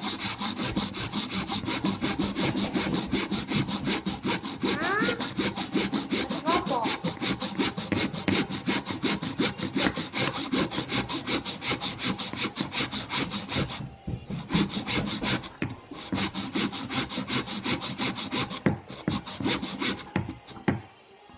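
Hand saw cutting through a Titleist Pro V1 golf ball held in a clamp: rapid, even back-and-forth strokes. They break off briefly about two-thirds of the way through, then stop shortly before the end.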